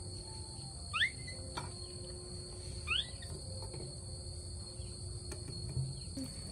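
Steady high-pitched drone of insects, crickets or cicadas, throughout. Two short rising chirps stand out, about a second in and again about three seconds in, with a few faint clicks between them.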